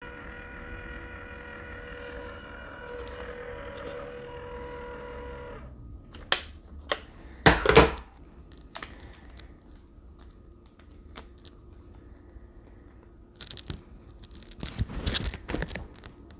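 Small handheld label maker whirring steadily as it prints a name label for about five and a half seconds, then stopping. Clicks and crinkling, tearing sounds follow as the label is handled and its backing peeled off.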